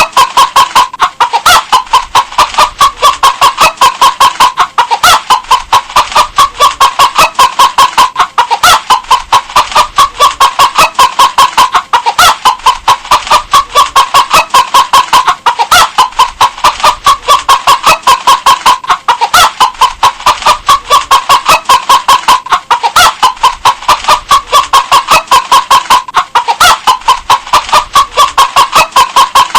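Hen clucking in a rapid, unbroken run of short clucks, about five a second, the same few-second stretch repeating over and over in an even loop.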